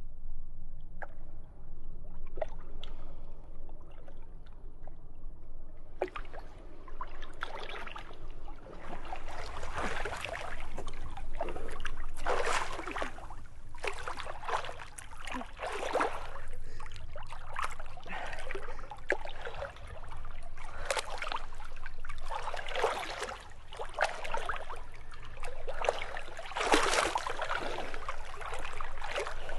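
Lake water splashing and lapping as a person wades in and swims. Only small scattered drips and laps for the first six seconds or so, then repeated irregular splashes.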